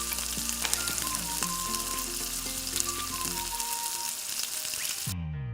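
Breaded cheese balls deep-frying in hot oil: a steady sizzle with quick crackles, under soft background music. The sizzle cuts off suddenly near the end.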